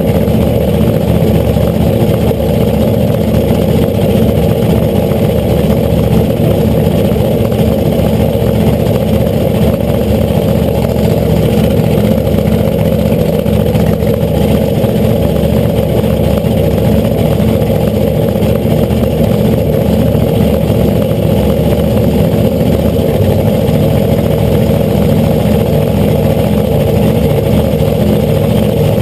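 Supercharged drag-racing funny car engine idling steadily and loudly at the starting line, heard from a camera mounted on the car right beside the blower.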